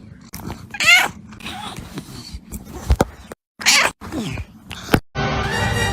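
A cat meowing a few times, short calls that bend up and down in pitch. Music starts near the end.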